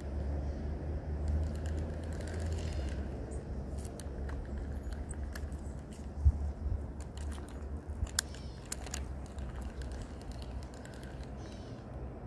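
Wind rumbling on the microphone at the water's edge, with scattered light clicks and ticks, the sharpest about six seconds in, and a few faint bird chirps.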